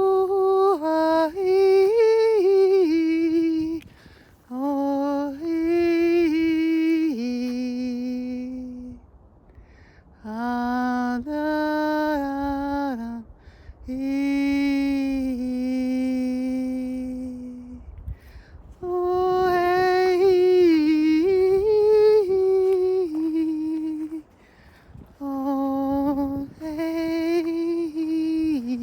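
A woman singing wordlessly in a chant-like, humming style: six sustained phrases of a few seconds each, the melody stepping and gliding between a few pitches, with short breaths between phrases.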